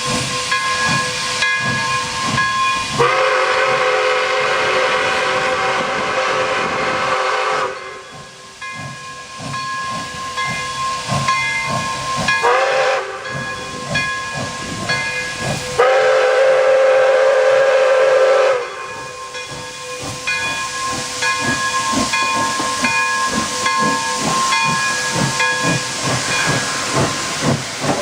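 Pere Marquette 1225, a 2-8-4 Berkshire steam locomotive, hissing steam with a run of exhaust chuffs. Its chime whistle sounds a multi-tone chord in a long blast a few seconds in, a short toot, and another long blast.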